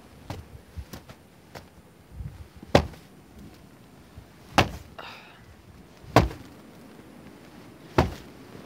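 Four sharp knocks, each about a second and a half to two seconds after the last, with fainter clicks during the first two seconds.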